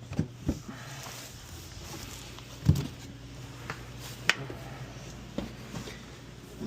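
Scattered knocks and thumps as a car's rear seat backrest is worked off its hooks and handled out of the car, the loudest a sharp knock a little under three seconds in and another just past four seconds, over a steady low hum.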